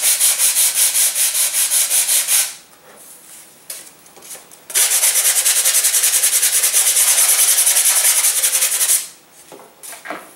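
Hand sanding of a wooden model-airplane wing root, fast even back-and-forth strokes at about five a second, bevelling the root to set the wing's dihedral angle. The sanding stops a couple of seconds in, resumes after about two seconds and stops again near the end.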